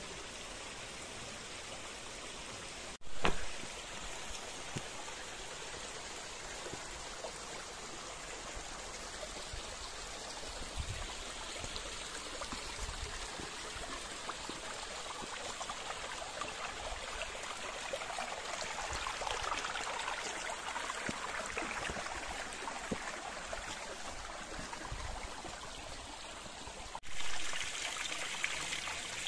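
Gorge stream running and trickling steadily over rocks, with a brief louder burst about three seconds in and again near the end.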